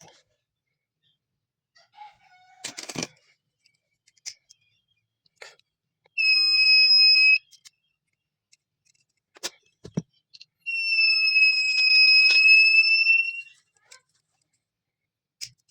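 Buzzer of a homemade smoke and gas detector circuit sounding its alarm. It gives a short, steady, high beep of about a second, then a few seconds later a longer beep of nearly three seconds at the same pitch. Scattered clicks and knocks come before and between the beeps.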